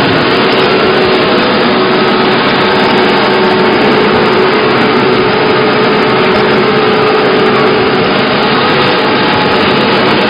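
Wood sawdust making machine (a log crusher) running, a loud, steady mechanical noise with a faint even hum through it.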